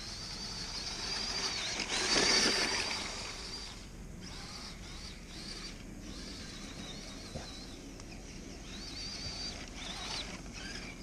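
Axial SCX10 Deadbolt RC crawler's electric motor and drivetrain whining as it is driven through snow, the pitch rising and falling with the throttle. The loudest, noisiest burst comes about two seconds in.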